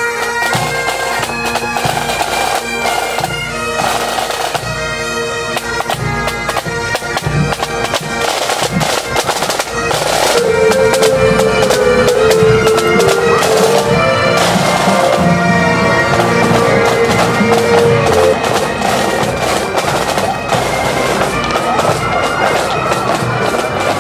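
Pipe band playing: Highland bagpipes with steady drones under the chanter melody, over snare and bass drums.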